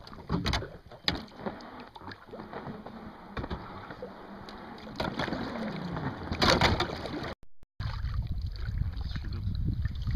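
Water splashing and sloshing around a small inflatable boat drifting on a river, with irregular sharp splashes and knocks. The sound drops out briefly about seven and a half seconds in and is followed by a steadier low rumble.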